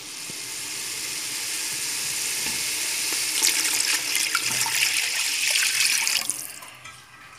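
A litre of water being poured in a stream into a cooking pot over a base of fried onions and spices, a steady splashing pour that dies away about six seconds in.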